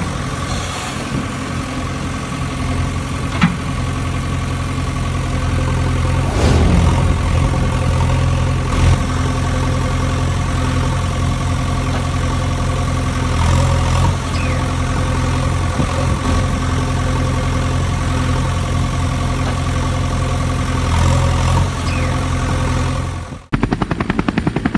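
A heavy engine running steadily, an engine sound effect laid over the toy backhoe pulling the dump truck, with a few short knocks. About a second before the end it cuts suddenly to the fast, pulsing chop of a helicopter rotor.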